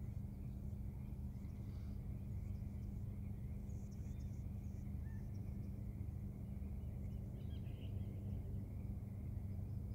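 Steady low outdoor hum with a few faint bird chirps.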